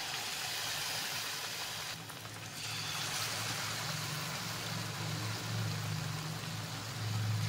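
Batter-coated potato wedges deep-frying in hot oil in a kadhai: a steady sizzle with fine bubbling, which dips briefly about two seconds in.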